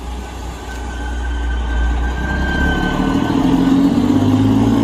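Diesel engine of a cabover semi truck hauling a flatbed trailer, running and getting louder as it drives past, its engine note rising and strengthening about halfway through.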